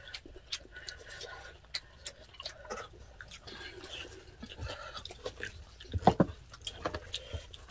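Eating sounds: chewing and small clicks of spoons and chopsticks against bowls, with a wooden spoon scraping and knocking fried rice in a pot, loudest about six seconds in.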